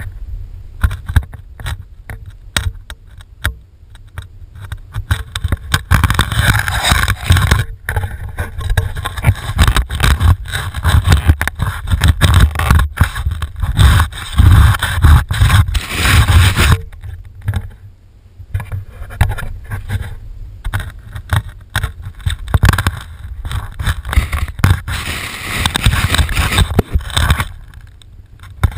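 Fillet knife slicing and scraping through a salmon fillet, heard through a GoPro mounted on the knife itself, so each stroke comes through as close, loud scraping and knocking over a low handling rumble. The strokes come in runs with short pauses, busiest in two long stretches.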